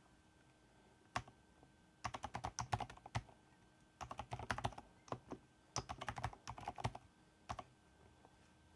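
Typing on a Keychron V6 Max full-size mechanical keyboard: a single keystroke about a second in, then three quick bursts of keystrokes with short pauses between them, and one last keystroke near the end.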